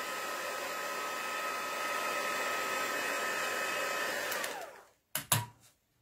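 A crafting heat tool blowing steadily over the inked card, drying the Distress ink colouring. About four and a half seconds in it is switched off and its motor winds down with a falling whine, followed by a couple of knocks as it is set down on the desk.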